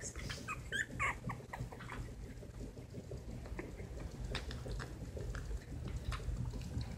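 Two-and-a-half-week-old silky terrier puppy giving a few short, high squeaks in the first second or so, then only a few faint clicks.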